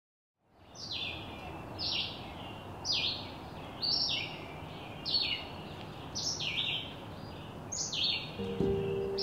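A songbird calling over and over, about once a second, each call a short falling phrase, over a steady outdoor hiss that fades in about half a second in. A few sustained music notes come in near the end.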